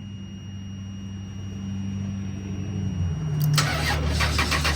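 A 1998 Chrysler Town & Country's starter cranking its V6 engine, starting suddenly about three and a half seconds in with an even, rapid chugging rhythm, during a crank test of an ASD circuit whose fuse keeps blowing from a wiring short. A steady low hum comes before it.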